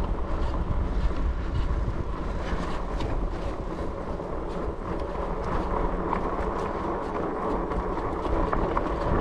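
Fat-tire electric bike rolling over a muddy dirt trail: a steady rumble of the 4-inch tyres and wind on the microphone, with scattered small clicks and rattles.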